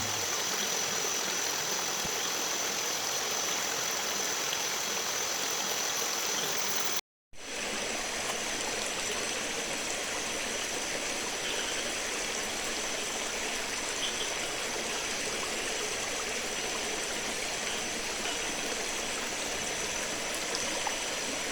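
Steady rushing of a flowing river, with a thin, steady high tone above it. The sound cuts out completely for a moment about seven seconds in.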